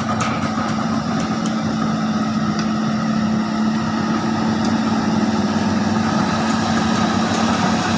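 Excavator's diesel engine running steadily, with a few light clicks in the first second and a half.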